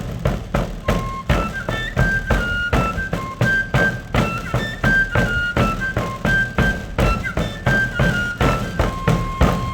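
Traditional pipe-and-drum music: a shrill pipe plays a lively melody of short and held notes over a steady, regular drumbeat.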